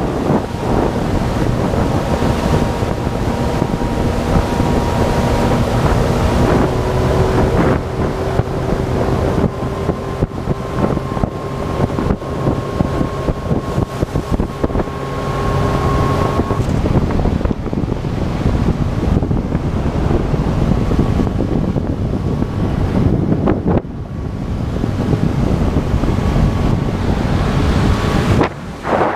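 Small outboard motor running under way on an aluminium boat, with heavy wind buffeting the microphone and water rushing past the hull. The engine's note jumps to a higher pitch about a quarter of the way through.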